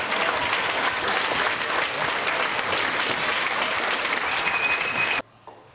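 Audience applauding: dense, steady clapping from many hands that cuts off suddenly about five seconds in.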